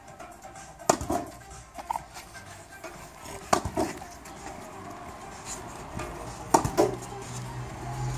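Tennis ball being hit against a rebound net trainer: three pairs of sharp knocks about every two and a half to three seconds, each pair a racket striking the ball and the ball hitting the rebounder a fraction of a second apart.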